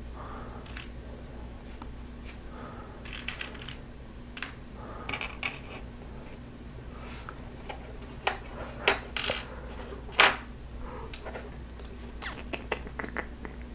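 Plastic Lego Technic pieces clicking and rattling on a tabletop as pins are picked from loose parts and pushed into a Technic frame. The clicks are light and scattered, with a few sharper ones between about eight and ten seconds in.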